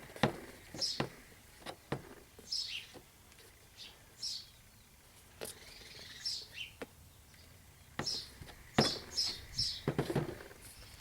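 A small bird chirping over and over in short, high, falling chirps. Scattered sharp clicks and knocks, loudest in a cluster near the end, come from handling the hand truck tire and inner tube.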